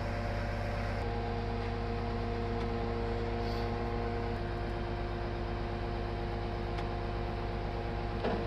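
Lorry-mounted timber crane at work: the delivery truck's diesel engine and hydraulic pump running steadily, a droning hum with several held tones.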